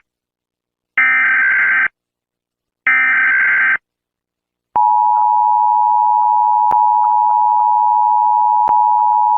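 Emergency Alert System tones: two short screeching SAME header data bursts about a second apart, then after a short pause the steady two-tone EAS attention signal, which starts about five seconds in and keeps sounding.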